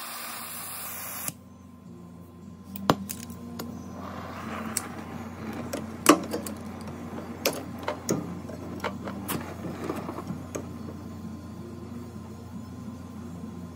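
Scattered clicks and knocks of tools and parts being handled over a steady low hum, during work on a refrigerator's compressor. A hiss in the first second or so cuts off suddenly.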